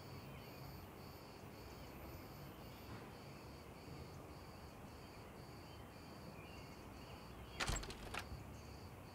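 Faint background hush with a steady cricket-like chirp pulsing about twice a second. A short cluster of clicks comes a little before the end.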